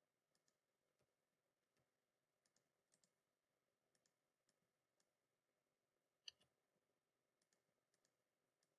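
Near silence, with a dozen or so faint, scattered computer mouse clicks; the loudest comes about six seconds in.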